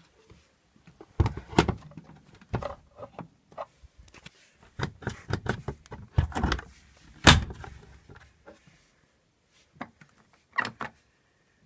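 Beko washing machine being handled: a run of irregular clicks, knocks and clunks, the loudest about seven seconds in, then two more near the end.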